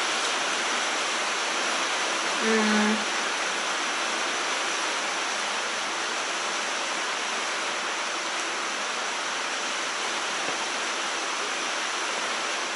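Steady rain, an even constant hiss, with one short hummed "mm" from a person about two and a half seconds in.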